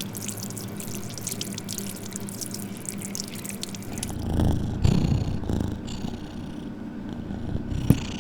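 Outdoor air-conditioner unit humming steadily, with scattered light ticks over the first few seconds. A louder low rumble swells about four to six seconds in, and a sharp click comes near the end.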